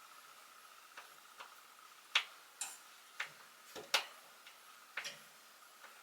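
A hand screwdriver working at screws in closet fixtures: a string of irregular sharp clicks and taps, metal on metal, with the loudest a little after two and four seconds in.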